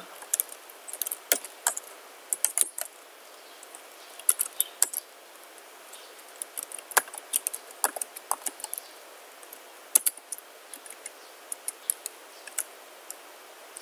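Computer keyboard typing: irregular runs of sharp key clicks with short pauses between them.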